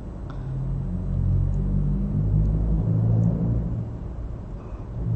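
A low engine rumble that swells over the first two seconds and fades after about four, like a motor vehicle passing.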